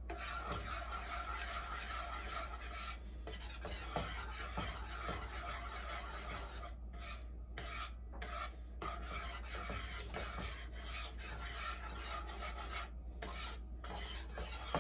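A utensil scraping around the bottom of a pot as Alfredo sauce with melted Parmesan is stirred, a continuous rasping broken by a few brief pauses. The sauce is kept moving off the heat so it doesn't burn.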